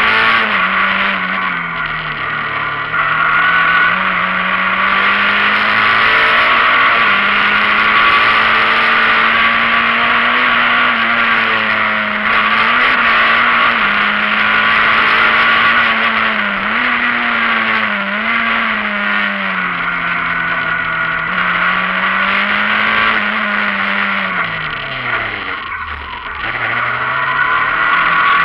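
Rally car engine heard from inside the cabin at speed on a dirt road, revs rising and falling through gear changes, over a steady hiss of tyre and road noise. About twenty-five seconds in, the revs drop sharply as the car slows hard, then climb again as it accelerates away.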